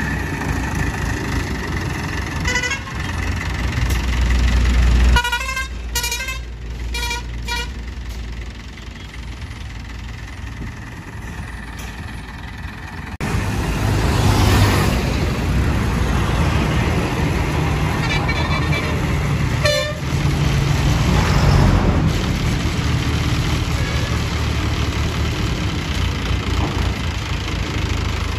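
Heavy vehicle engine running with highway traffic passing. A vehicle horn toots several short times from about five to eight seconds in, and again briefly around twenty seconds.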